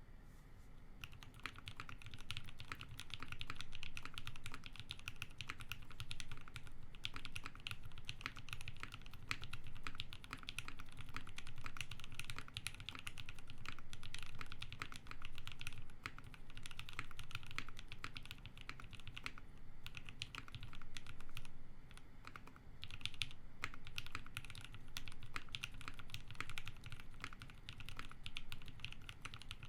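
Steady, continuous typing on a custom 60% mechanical keyboard fitted with lubed Everglide Sakura linear switches with milky-top housings and long springs, mounted on a polypropylene plate over case foam. The keystrokes sound soft and creamy rather than clacky, with a few brief pauses in the typing.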